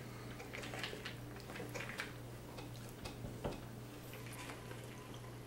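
Forks clicking and scraping lightly against a plate of pasta as it is eaten: a few scattered soft clicks over a steady low hum.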